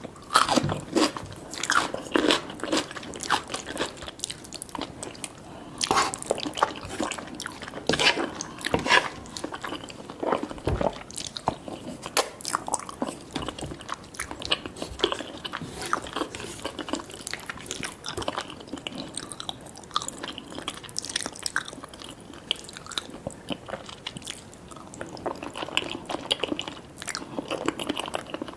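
Close-miked eating: biting and chewing food, with irregular crunches and mouth clicks.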